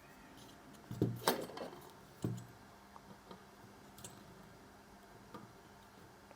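A few light clicks and taps of small hard objects being handled: three sharper ones in the first couple of seconds, then only faint scattered ticks.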